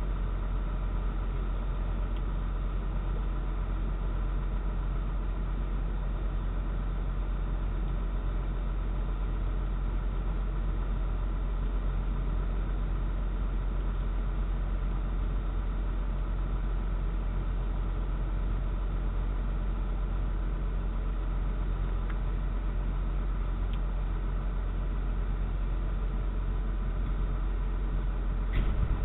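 A steady low rumble with a faint even hum, through a doorbell camera's narrow-band microphone, with a brief click near the end.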